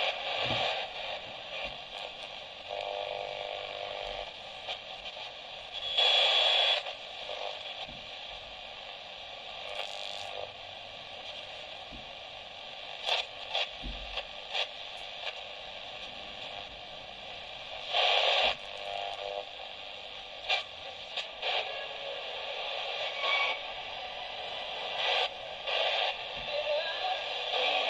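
Small multiband shortwave radio (a Kchibo KK-9813 clone) giving steady static and hiss from its speaker while being tuned across the 16-metre shortwave band. There are brief louder bursts about six seconds in and again about eighteen seconds in, and a few short clicks.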